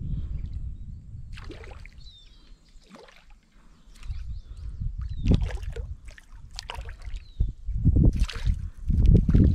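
A small mojarra hooked on a popper lure splashing and thrashing at the water's surface as it is drawn to the bank, in irregular splashes that are loudest in the last few seconds.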